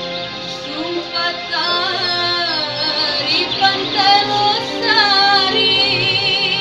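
Music: a sliding, wavering melody line over a steady accompaniment, the intro of a song before any lyrics are sung.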